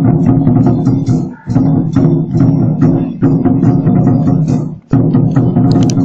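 Lion-dance drum troupe playing a loud, fast, dense percussion rhythm, breaking off briefly about a second and a half in and again near five seconds.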